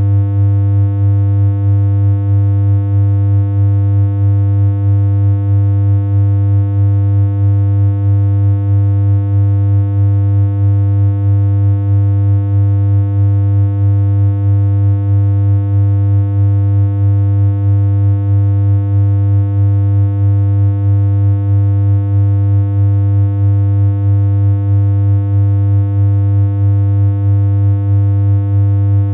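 A steady synthesized hum: one low electronic tone held without change, with a slight regular pulsing in level about twice a second.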